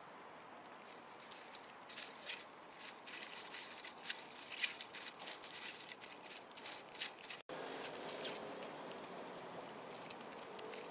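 Two kittens eating wet cat food from a tray: quick, irregular wet chewing and lapping clicks, densest in the middle, with a brief dropout about seven and a half seconds in, after which the eating continues more softly.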